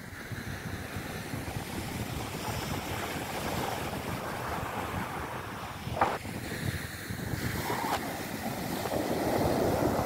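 Ocean surf breaking on a sandy beach, mixed with wind buffeting the microphone. It is a steady wash that grows louder toward the end.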